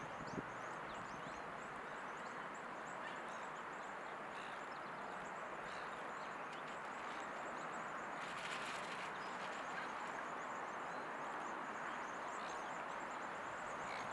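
Open-air ambience: a steady background hiss with small birds chirping throughout, and a brief louder rustle or call about eight seconds in.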